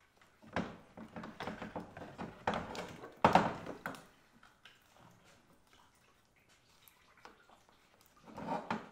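Old radiator with plastic end tanks being worked loose and lifted out of a 2002 Chevy Suburban 2500's engine bay: a run of knocks, clunks and scraping of plastic and metal, loudest about three seconds in, quieter after that, with another short clatter near the end.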